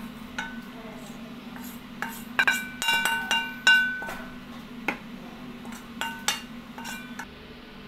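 A wooden spatula knocking and scraping against a metal wok while food is pushed out onto a plate: a series of irregular sharp knocks, each with a short metallic ring, the loudest bunch in the middle, ending about seven seconds in.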